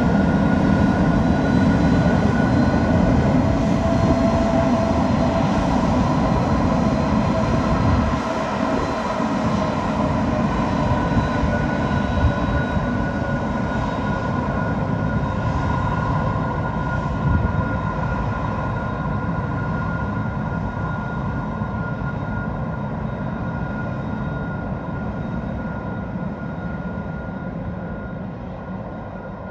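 Airliner's engines running: a steady whine over a deep rumble, slowly fading as the aircraft moves away.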